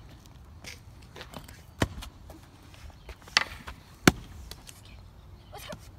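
Axes chopping into rounds of firewood: three sharp strikes, the loudest about four seconds in.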